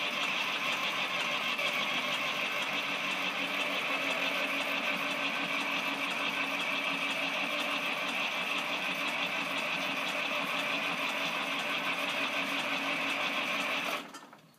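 Fordson New Performance Dexta's three-cylinder diesel engine running steadily with a fast, even clatter. The sound stops suddenly near the end.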